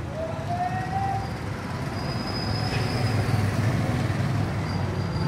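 Street traffic: a motor vehicle's engine rumbles low and steadily, growing louder, with a short rising whine about half a second in.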